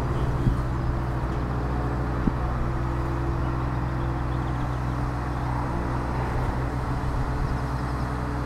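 Diesel engine of a Demag/Terex AC 200-1 mobile telescopic crane running steadily under load while lifting and swinging a suspended jetty section of about 9 tonnes. Two short knocks come through, one just after the start and one about two seconds in.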